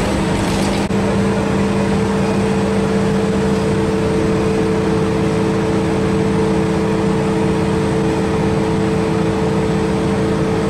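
Industrial machinery of a biomass gasification plant running steadily: a loud, even mechanical hum with several constant tones over a wash of noise.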